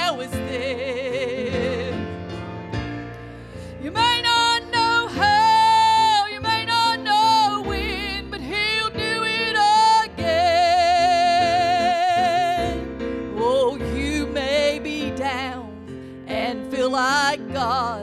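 A woman singing a gospel song over piano accompaniment, holding several long notes with wide vibrato through the middle.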